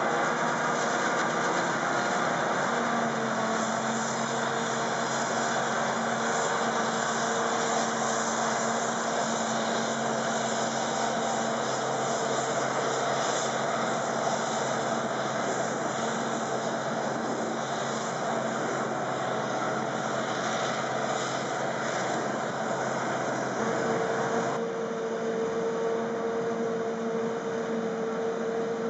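Claas Jaguar self-propelled forage harvester chopping maize at working speed: a loud, steady machine drone with a constant pitched hum. The tone of the hum shifts slightly about 25 seconds in.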